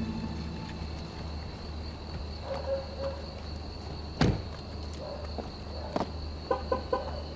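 Crickets chirping in a steady high trill. A car door is slammed shut about four seconds in, and there are a few short clicks near the end.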